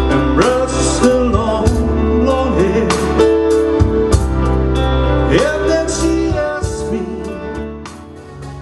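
A live pop band, with electric guitar, bass guitar, keyboard and drum kit, plays a song while a singer's voice slides between notes. The music fades down near the end.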